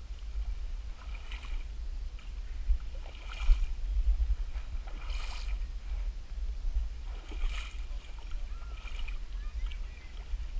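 Legs wading through shallow pond water while a seine net is hauled, with a sloshing splash about every two seconds over a low, steady rumble on the microphone.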